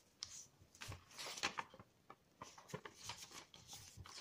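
Sheet of coloured paper rustling and crinkling in the hands as it is folded in half on a table: faint, scattered rustles.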